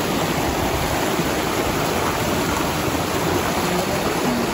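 Steady rushing water of a jungle stream.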